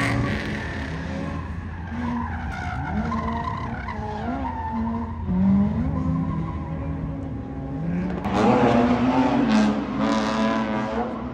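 Drift cars sliding with tyres skidding, engines revving up and down between shifts. About eight seconds in, an engine gets louder and higher, held at high revs for a couple of seconds.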